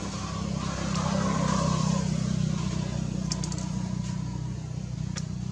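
A motor vehicle's engine running with a steady low hum, swelling louder about one to two seconds in and then easing off, with a few short sharp clicks later on.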